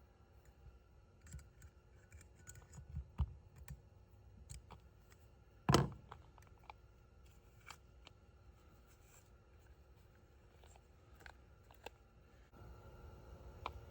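Hands working on a sailboat furling drum while fitting its small retainer clip and winding the furler line back onto the drum: scattered light clicks and taps of small hard parts, with one louder knock about six seconds in.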